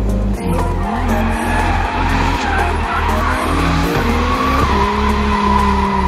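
Audi S2 drift car sliding, its tyres squealing and its engine revving up and down, under music with a heavy bass beat about twice a second.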